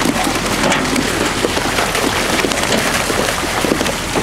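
Water and live fish gushing down a metal fish-stocking chute from a hauling truck's tank and splashing into a lake: a steady rushing, splashing noise.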